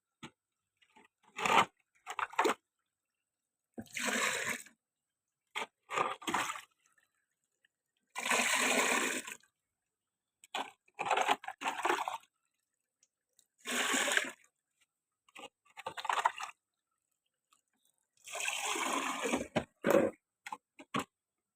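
Water splashing in repeated short pours, about ten bursts roughly two seconds apart.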